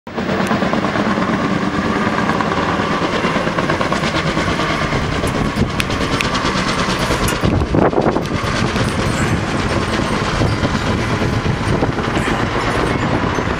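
Firefighting helicopter flying overhead with a water bucket on a long line, its rotor chopping steadily. A brief louder swell comes about eight seconds in.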